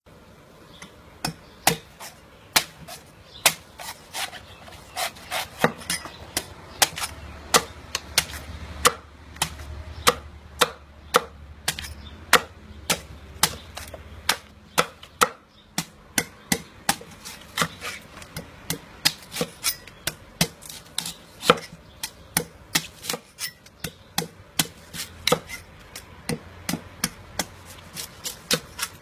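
A heavy cleaver chopping into the husk of a young green coconut on a wooden chopping block: sharp blows at about two a second, uneven in spacing and strength.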